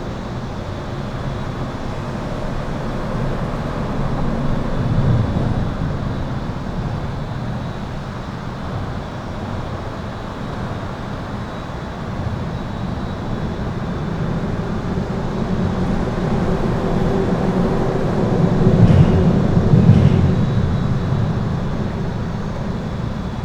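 Highway traffic heard from under an overpass: a continuous rumble of tyres and engines that swells as heavier vehicles pass, about five seconds in and again near the end, where two short sharp knocks come about a second apart. A faint steady high-pitched tone runs underneath.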